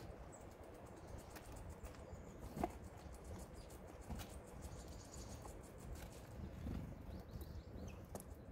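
Faint scattered taps and knocks of great tits landing and pecking on a wooden feeder tray heaped with sunflower seeds, with one sharper knock about two and a half seconds in, over a low steady rumble.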